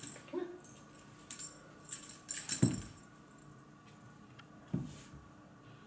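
Light metallic jingling and clicking, with two soft thumps, the first about two and a half seconds in and the second near five seconds.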